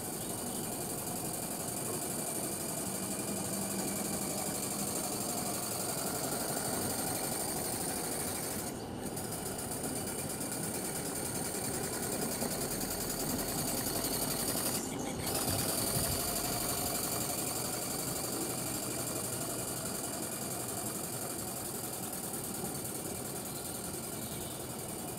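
3/4-inch scale Maxitrak live-steam traction engine running under radio control, a rapid, steady beat of exhaust and clattering motion work as it drives along.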